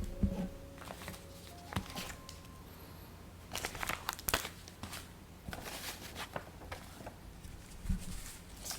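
Paper crinkling and rustling in irregular short bursts as a handmade paper blind bag is handled and opened.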